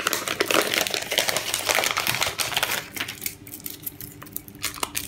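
Foil wrapper of a milk chocolate bar crinkling and rustling as it is pulled from its cardboard sleeve and unwrapped by hand: a rapid dense crackle for about three seconds, then quieter scattered crackles.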